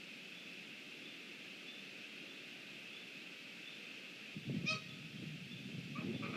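A large bird calls with short, pitched cries, once about two-thirds of the way in and again near the end, over wind buffeting the microphone that starts partway through.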